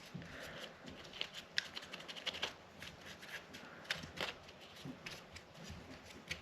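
Faint, irregular scratchy rubbing with small clicks: cotton swabs scrubbing dirt out of the nooks of a disassembled Glock 44 pistol.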